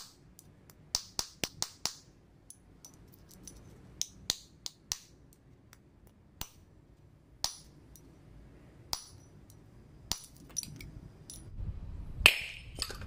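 Steel hammer striking a drift to drive a new bearing into a car's front strut top mount: sharp metallic taps with a short ring. A quick run of about five comes a second or two in, then single taps spaced a second or so apart, and the loudest strike lands near the end.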